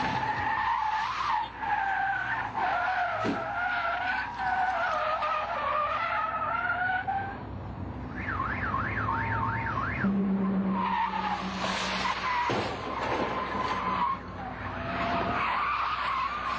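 Car tyres squealing in a long skid for about seven seconds. About eight seconds in, a siren gives a quick up-and-down yelp, and a steady horn-like tone follows briefly. After that come more tyre squeal and a few sharp knocks.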